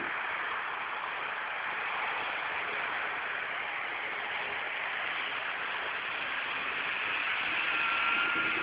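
A steady rushing noise from a BMW E34 drifting through snow, its engine and tyres blurred together into one even hiss, with a faint steady tone rising out of it near the end.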